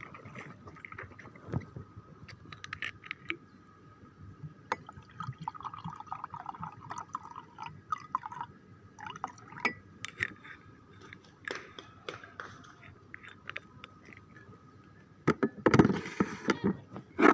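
Liquid poured into a glass amid small clinks and knocks, with a louder clatter near the end.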